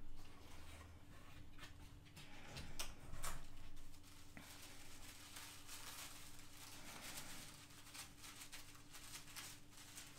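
Quiet handling of a patchwork subscription box and its contents: scattered soft rustles and light taps, the loudest a few seconds in, over a faint steady hum.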